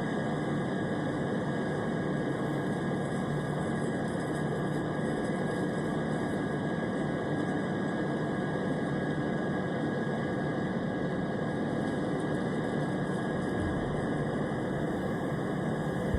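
Airplane engine noise: a steady, even drone and rush of air, with a faint high whine held on one pitch throughout.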